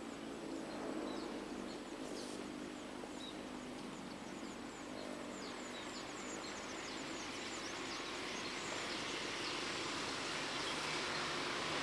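Birds chirping in quick short calls over a steady outdoor hiss. From about halfway on, a rushing noise swells gradually, the sound of an approaching train.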